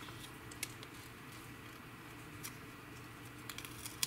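Quiet handling of masking tape and paper being lifted off a plastic model kit: a few light clicks and ticks over a faint, steady low hum.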